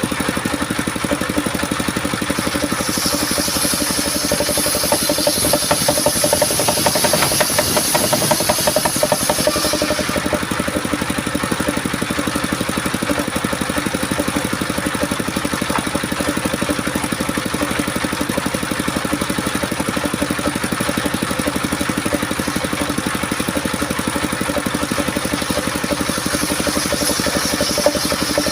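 Homemade circular saw machine running steadily, its blade cutting through coconut wood with a high, hissing rasp from about three seconds in until about ten seconds, then starting another cut near the end.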